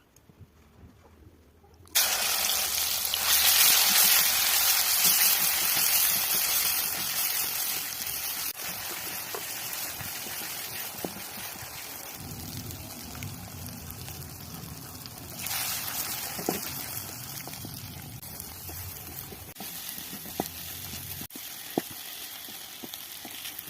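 Food frying in hot oil in a pan: a sizzle starts suddenly about two seconds in as something goes into the pan, loudest at first and slowly settling, then swelling again partway through. A few light clicks sound over it.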